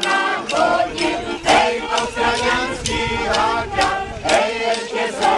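A group of people singing together over steady held tones, with sharp clicks or knocks scattered through.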